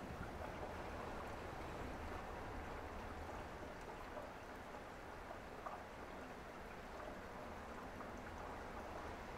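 Faint, steady rain hiss with a low hum underneath.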